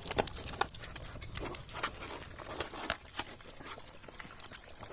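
Pigs eating from their feed: irregular crunching and chomping of pig nuts and fruit.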